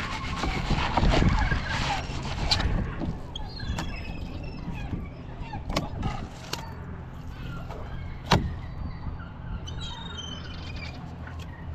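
Outdoor ambience: geese honking for the first couple of seconds, then small birds chirping over a steady low rumble. Several sharp knocks break through, the loudest about eight seconds in.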